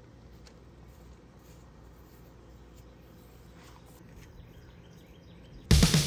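Faint outdoor background with a few soft clicks and short faint chirps. Loud music cuts in suddenly near the end.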